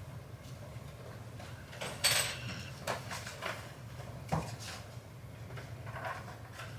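Sleeping Samoyed puppy breathing noisily, with one loud hissing snuffle about two seconds in and a few shorter snuffles and clicks after it.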